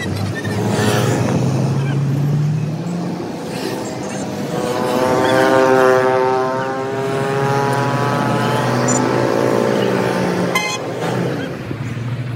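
Road traffic on a busy road, with one motor vehicle's engine passing close by in the middle, its pitch falling as it goes past. A single sharp knock near the end.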